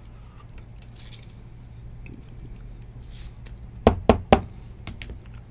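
Hard plastic trading-card cases clacking together on a table: three sharp clicks in quick succession about four seconds in, after light handling noise over a low steady hum.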